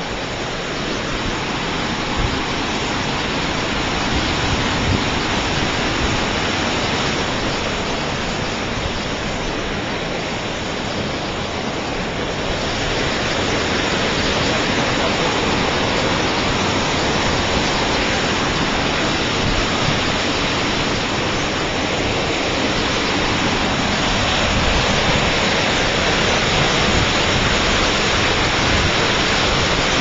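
Waterfall spilling from a dam, the white water below it rushing and churning in a steady loud roar of falling water, growing a little louder about halfway through.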